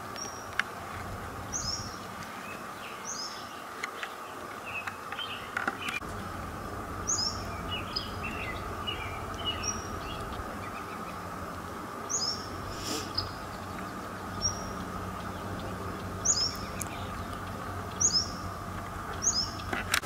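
Songbirds chirping and singing: a short, high, down-slurred call repeats every second or two while other birds chirp more softly and lower, over a steady background hum.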